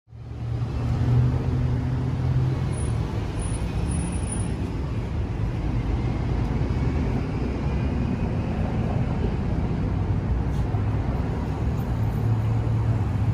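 Steady low rumble of road traffic, with a constant low hum under it.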